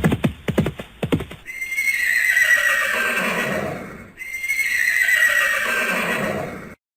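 Horse whinnying twice, each neigh about two and a half seconds long, starting high and falling away. It is preceded by a quick rhythmic run of short beats, and the audio cuts off suddenly near the end.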